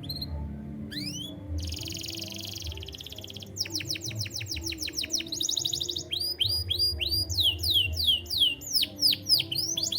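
Canary singing a varied song. It starts with a rising whistle, then a fast buzzing roll, then a run of quick falling notes and a second short roll. Near the end come repeated up-and-down slurred notes that grow louder.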